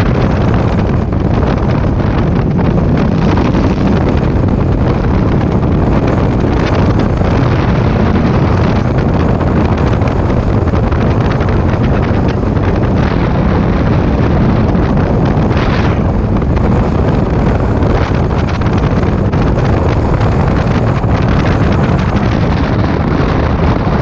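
Heavy, steady wind buffeting the camera microphone on a motorcycle riding at road speed, a dense low rumble without a distinct engine note.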